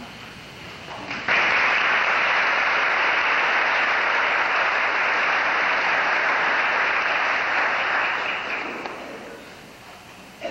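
Audience applauding. It starts abruptly about a second in, holds steady, then dies away over the last couple of seconds.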